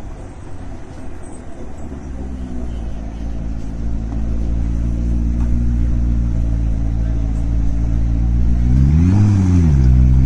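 Car engine running steadily, growing louder over the first few seconds, with one quick rev that rises and falls in pitch about nine seconds in.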